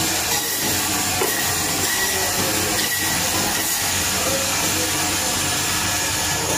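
Meat band saw running steadily, its blade cutting through a frozen lamb leg and bone: an even, continuous noise with a low motor hum underneath.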